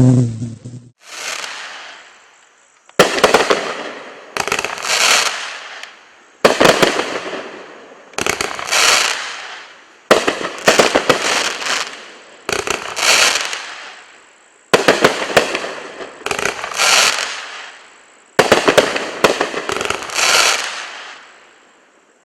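Stinger brand 'Hive' multi-shot firework firing shot after shot, roughly every one and a half to two seconds. Each shot is a sharp report followed by a loud, hissing break that fades over a second or so.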